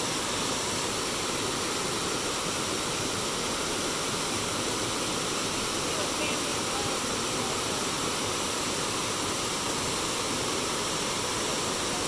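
River water running steadily: a continuous, even rush of flowing water.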